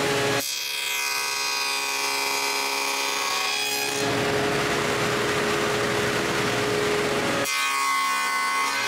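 Table saw with a dado stack running and cutting box-joint fingers in wooden panels: a loud, steady machine noise that changes character a few times as the passes are made.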